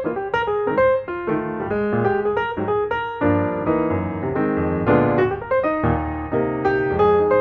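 Piano music: a steady flow of notes and chords played at a moderate pace.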